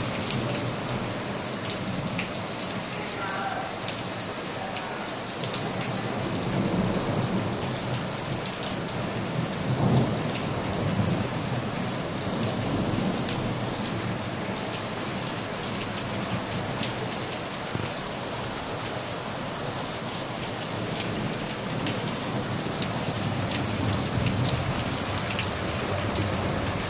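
Heavy thunderstorm downpour: a steady hiss of rain pouring onto the paved street and parked cars, with scattered sharp ticks of drops striking close by. Low rumbles of thunder swell beneath it, the strongest about ten seconds in.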